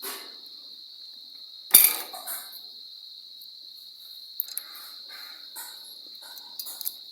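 Small hard objects knocking and clicking on a work surface: one sharp knock about two seconds in, then a run of lighter clicks and taps near the end, over a steady high-pitched whine.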